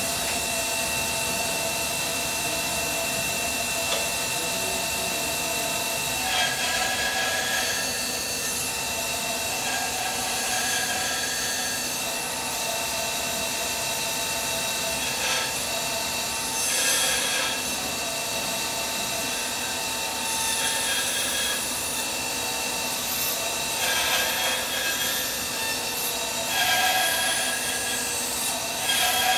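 Laguna 14|12 bandsaw running steadily, its blade cutting wood in a series of short cuts every few seconds as it hogs out the waste between dovetail pins.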